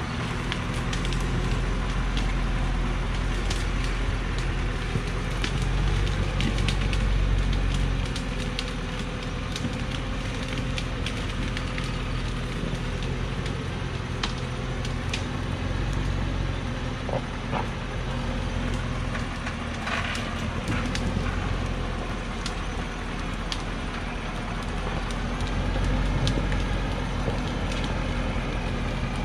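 Diesel engine of a Hoa Mai log truck loaded with acacia logs, running steadily as the truck creeps down a steep muddy dirt slope, with scattered sharp cracks and snaps throughout.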